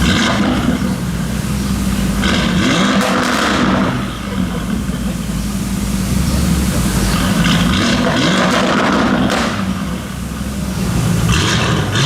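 Lamborghini Urus twin-turbo V8 through a straight-piped Novitec Race exhaust, running with a steady deep rumble broken by three or four revving surges a few seconds apart.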